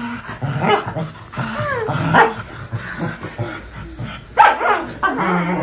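Pet dog giving a run of short barking calls that slide up and down in pitch, the loudest about four and a half seconds in.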